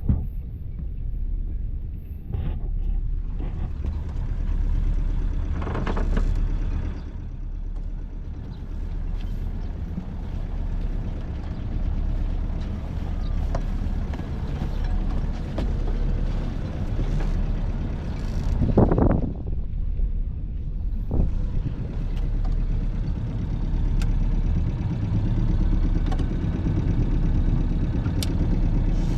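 Boat engine running steadily at idle, a low even rumble. A couple of brief louder rushes come about six and nineteen seconds in.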